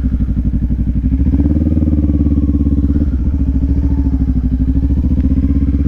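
Kawasaki Ninja 400 sport motorcycle's engine running steadily at low road speed, its pitch lifting a little about a second and a half in as the throttle opens slightly.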